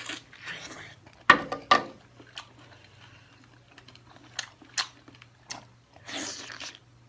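Close-miked eating of seafood: two sharp crunches a little over a second in, then scattered softer clicks and chewing noises.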